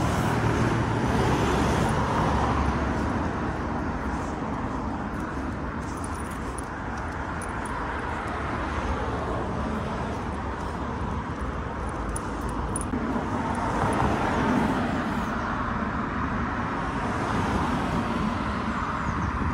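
Road traffic on a busy multi-lane city street: cars driving past in a steady stream, with the noise swelling as individual cars pass close by, about two seconds in and again around fourteen seconds.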